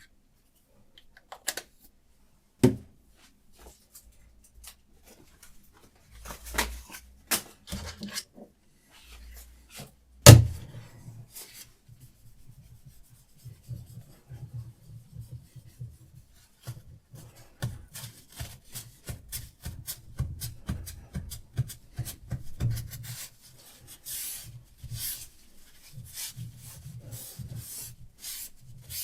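Diamond sharpening stone on a Hapstone RS knife sharpener scraping along a knife blade in quick, repeated strokes through the second half. Before that come scattered clicks and two sharp knocks, about three and ten seconds in.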